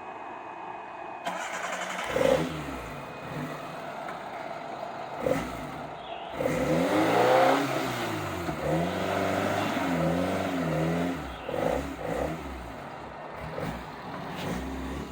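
Off-road vehicle engine revving in repeated bursts under load, its pitch rising and falling, with the longest and loudest rev about seven seconds in.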